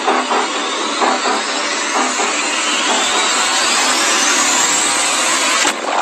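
Logo intro sound effect: a dense rushing whoosh with a regular beat of about two or three pulses a second, which fades out about two seconds in. A whistling tone over it rises steadily in pitch, and the whole sound cuts off sharply just before the end.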